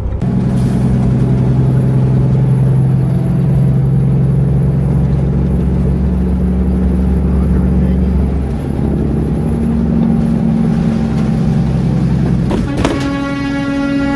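Motor vehicle engine running with a steady low drone. Near the end there is a brief knock, then a vehicle horn sounds one long steady note.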